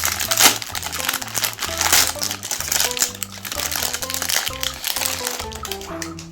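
Background music with a stepping bass line, over dense crackling and crunching of chocolate-coated Magnum ice cream bars being crushed in a meat grinder; the loudest crunches come about half a second and two seconds in.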